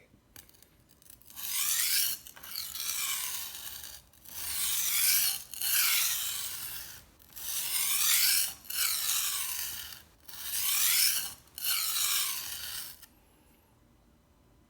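Kramer knife's steel blade being drawn across the water-soaked coarse stone of a Wüsthof Tri-Stone whetstone set: about eight long, gritty scraping strokes in a steady rhythm, stopping about a second and a half before the end.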